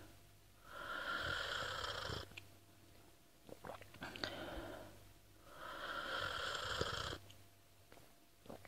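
A person slurping hot tea: two long breathy slurps of about a second and a half each, with short clicks between them, about three and a half seconds in and again near the end.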